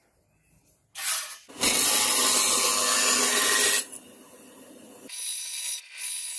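Scroll saw with a thin blade cutting a marked disc out of thin sheet metal. The saw starts about a second in and runs loud and steady for about two seconds. From about five seconds in it gives a scratchy, uneven cutting sound over a faint steady tone.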